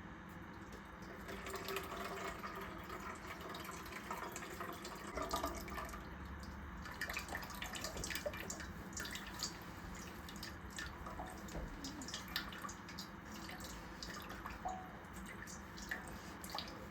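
Whey dripping and trickling from a cloth bundle of cream-cheese curds into a bowl, with scattered small ticks and handling noises.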